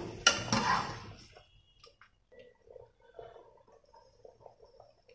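Steel slotted skimmer scooping 80%-cooked basmati rice out of its cooking water and spreading it over the biryani layer: faint taps, light ticks of metal on the pans, and soft wet squishes of the rice.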